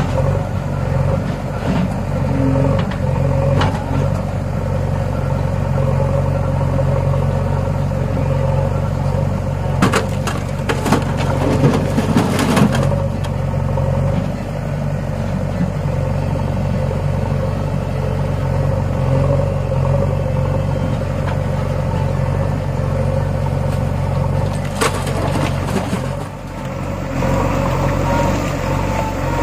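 Heavy diesel engine running steadily, with a run of sharp clattering knocks about ten to thirteen seconds in and a couple more near twenty-five seconds.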